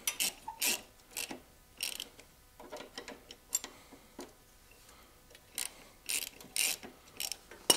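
Ratchet wrench clicking in short, irregular strokes on the rear chain adjuster of a Honda CB450T, cracking the lock nut and turning the adjuster to take up a drive chain that is a little too loose.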